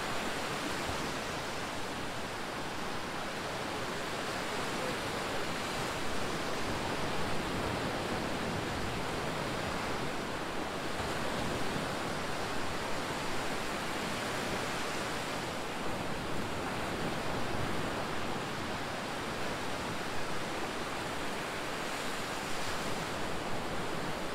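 Surf breaking and washing up a sandy beach, a steady rushing noise that never lets up.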